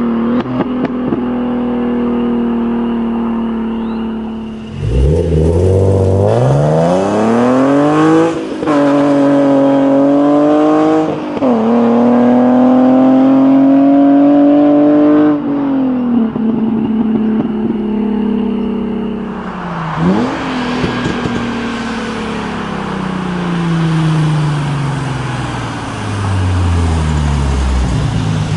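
Hyundai Genesis Coupe 3.8 V6 with headers, test pipes and a catback exhaust that keeps its mufflers. It runs steadily at first, then accelerates hard from about five seconds in, with two upshifts, and holds high revs. The revs then fall as it lifts off, with a brief rev blip partway down, and the car passes by near the end.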